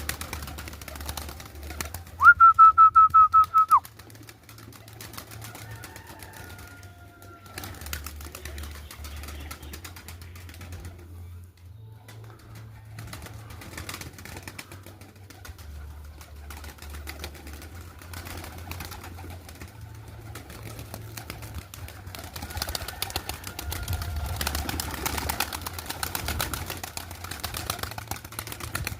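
Samarkand takla pigeons, with faint bird sounds over a low rumble. About two seconds in, a loud, high, rapidly pulsing tone lasts about a second and a half and is the loudest sound.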